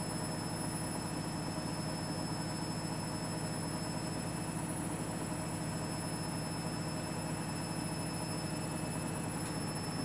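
Front-loading washing machine's drum spinning at a steady speed during the final spin of a half load, a steady hum with a faint high whine over it.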